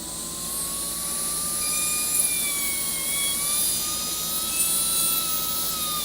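Dremel rotary tool spinning up and drilling a pilot hole: a steady high-pitched whine that starts at once and wavers slightly in pitch as the bit meets the work.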